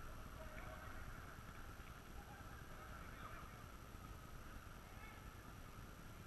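Faint, distant shouts and calls of footballers across the pitch, over a steady low rumble.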